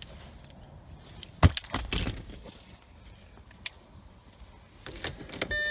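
Scattered clicks and knocks as the ignition key is worked, with no starter cranking at all: a no-crank condition, here caused by a water-damaged relay under the ECM. A steady dashboard chime tone starts near the end.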